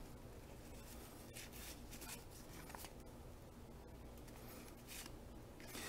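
Faint rustling and flicking of cardboard baseball cards handled in a stack, with a few soft scrapes and ticks as cards slide against each other over a low room hum.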